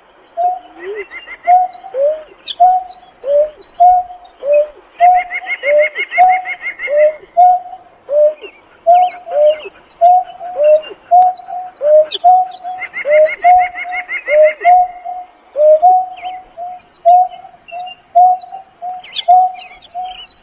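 Greater painted-snipe giving a long run of low hooting coos, about two a second, some notes dipping in pitch. Twice, a fast high trill runs over the hoots for about two seconds.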